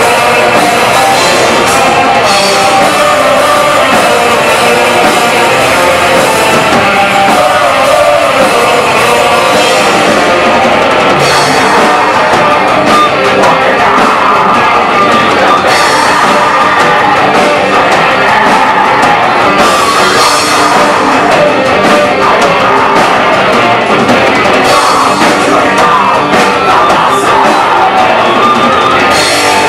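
Black metal band playing live: distorted electric guitars and a drum kit in a loud, dense, unbroken wall of sound.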